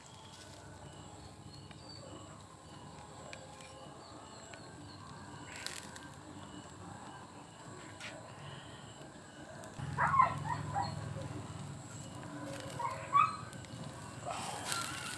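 Quiet background with a few soft clicks, broken about ten seconds in and again near thirteen seconds by short animal calls.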